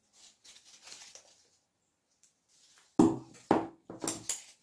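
Scissors snipping through EVA foam: faint cutting and rustling at first, then a few sharp metallic clicks of the blades closing, starting about three seconds in.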